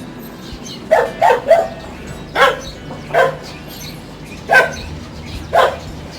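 Dog barking: about seven sharp barks, three in quick succession about a second in, then single barks spaced irregularly.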